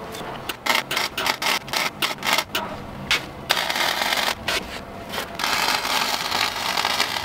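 Electric arc welding on steel plate. The arc crackles and sputters in short bursts at first, then settles into a steadier crackling hiss from about three and a half seconds in, with a few brief breaks.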